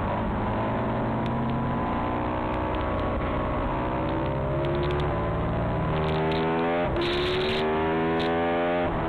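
Ducati 996R's L-twin engine at racing speed, heard from on board. The pitch climbs as the bike accelerates out of a corner, with an upshift about seven seconds in and another near the end.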